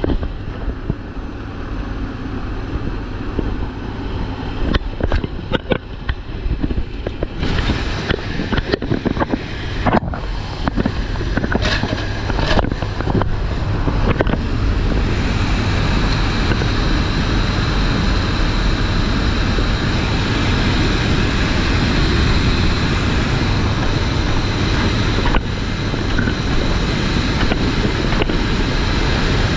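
Cabin noise inside a C-130J Super Hercules in flight: the steady drone of its four turboprop engines and the rush of air, with scattered clicks and knocks in the first half. About halfway through, the rushing air grows louder and fuller, with the side paratroop door open to the slipstream by the end.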